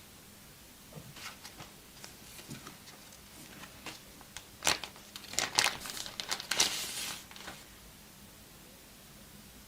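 Phone packaging being handled and unwrapped: scattered light clicks and rustles, then a louder burst of crinkling and crackling about halfway through that dies down near the end.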